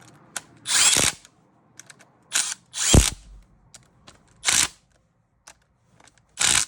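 Impact wrench firing several short bursts, snugging the long 10 mm housing bolts on a Honda Accord power steering pump. The bursts are brief and loud, with pauses between them.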